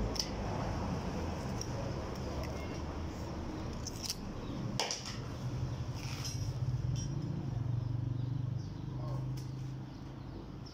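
Butcher's knife cutting and scraping through camel shoulder meat and along the rib bones, with scattered sharp clicks of the blade on bone, over a steady low hum.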